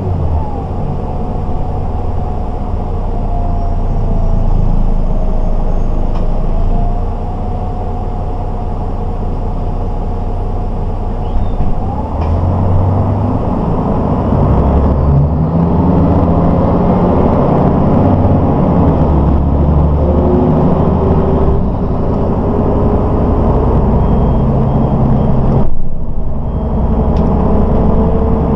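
Inside a moving 1992 MAN SL 202 city bus: diesel engine and road rumble with a steady whine over the first half. From about halfway the engine note climbs in steps as the bus accelerates, with brief dips in between, the last and sharpest a couple of seconds before the end.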